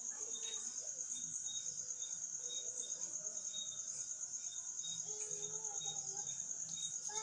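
A cricket trilling without a break: a steady, rapid, high-pitched pulsing, with a fainter insect call of short repeated notes at a lower pitch.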